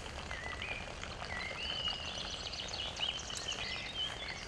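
Songbirds singing in the background, a string of short whistled notes and chirps, over a faint low hum.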